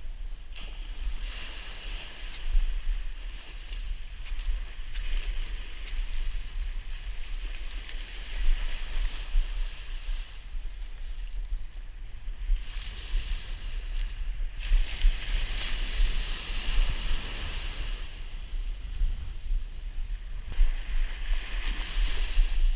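Surf washing onto the beach, the hiss swelling and fading as each wave comes in, over a steady low rumble of wind on the microphone.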